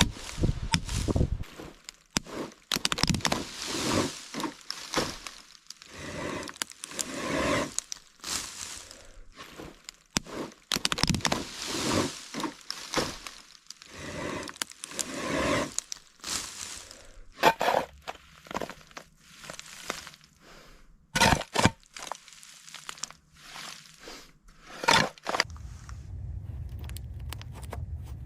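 Irregular scraping, cracking and knocking, with a few sharp cracks in the second half. A steady low hum comes in near the end.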